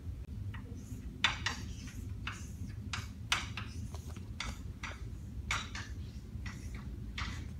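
Chalk tapping and scraping on a chalkboard in short, irregular strokes while writing, over a steady low room hum.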